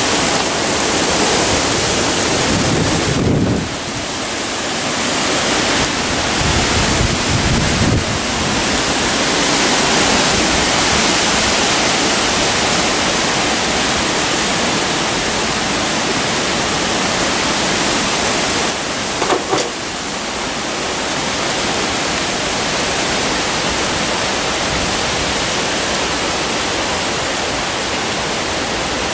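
Tropical-storm wind and rain: a loud, steady rushing noise of gusts through the trees, easing briefly twice.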